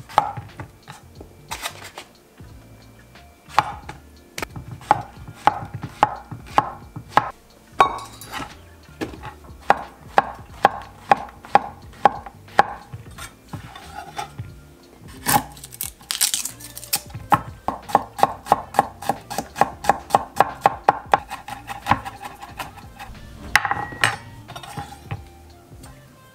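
Chef's knife chopping on a bamboo cutting board. It starts with scattered single cuts, then comes a fast mincing run of about five strokes a second past the middle, and a few more cuts near the end.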